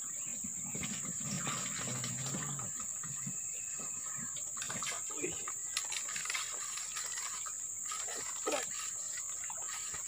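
Steady high-pitched drone of insects, with scattered light clicks and handling noises from a fishing rod and reel while a hooked fish is played.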